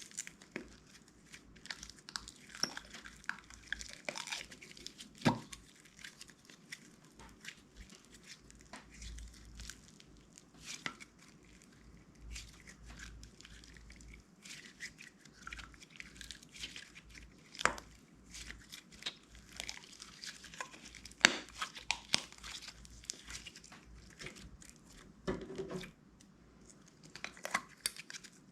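Hands working clear slime: irregular sticky crackles, small pops and short tearing sounds as it is stretched, pressed and mixed, with a few sharper clicks.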